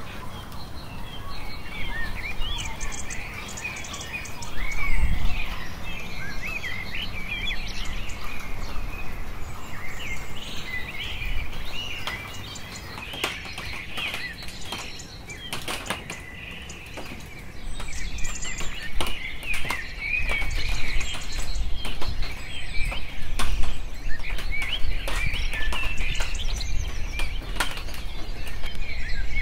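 Many small birds chirping and twittering without pause, with scattered sharp clicks through the middle and later part and a low rumble that swells about five seconds in and again over the second half.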